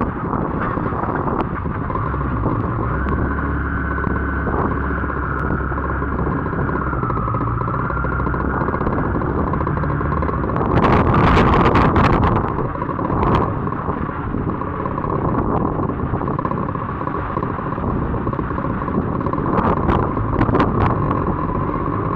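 Heavy wind blowing steadily and buffeting the microphone with a low rumble, with a stronger gust about halfway through.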